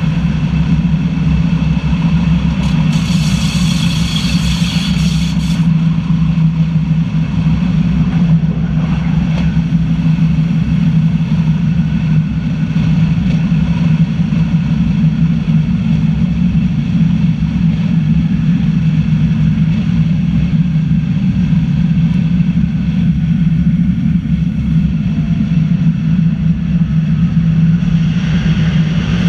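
Metre-gauge electric train of the Zentralbahn running steadily, with a low hum and rumble from the running gear. A brief high hiss comes about three seconds in, and near the end the sound brightens as the train enters a tunnel.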